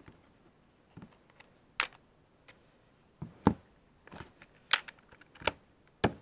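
A few scattered sharp clicks and light knocks of small hard objects being handled on a workbench, about seven in six seconds, the loudest about three and a half seconds in.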